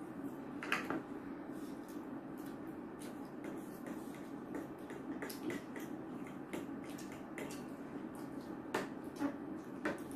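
Metal forks clicking and scraping against plates at an irregular pace as noodles are eaten quickly, over a low steady room hum.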